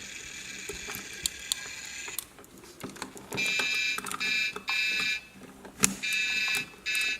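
Toy truck's electronic sound module playing a steady hissing effect that stops about two seconds in, then a high electronic beeping in repeated half-second bursts from about three seconds in. A few sharp plastic clicks from handling the toy.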